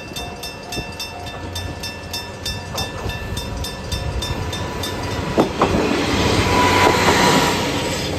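Electric level-crossing bell ringing in rapid, evenly spaced strokes as a Kominato Railway train passes over the crossing. Wheel clacks on the rail joints come about five seconds in, and the train's noise swells to its loudest near the end.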